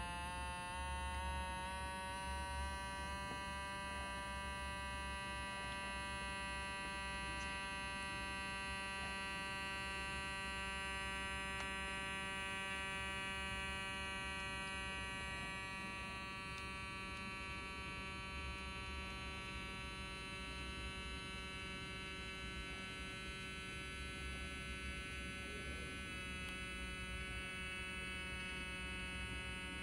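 Small electric air pump of a Citizen CH-657 wrist blood pressure monitor whining steadily as it inflates the cuff for a measurement. Its pitch rises over the first few seconds, then holds while the cuff pressure climbs past 140 mmHg.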